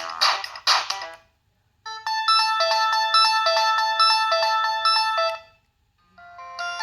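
Preloaded ringtones on a Samsung T249 mobile phone. One electronic ringtone ends about a second in, and after a short gap a quick, repeating melody of bright electronic notes plays for about three and a half seconds. The next ringtone starts near the end.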